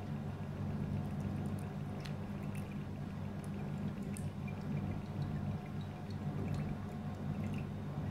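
Whisky poured from a bottle into a glass tumbler in a thin, steady stream, a gentle trickle into the glass, over a steady low hum.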